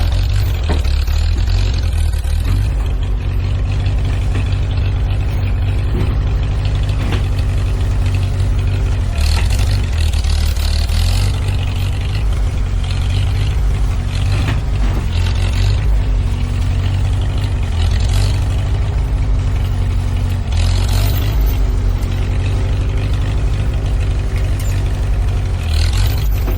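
Tractor engine running loud and steady under work, with a pitched whine that wavers up and down from a few seconds in and occasional clatter.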